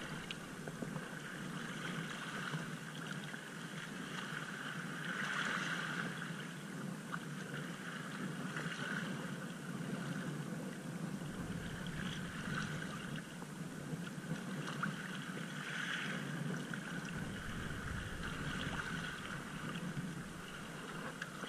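Steady wash of shallow, choppy sea water with wind, swelling a little now and then.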